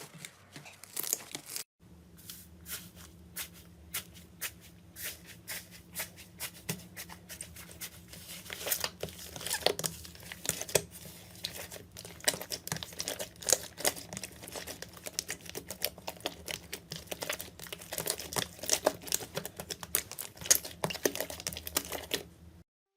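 Slime being squeezed and worked by hand, giving dense, irregular crackling and popping clicks, with a brief break about two seconds in.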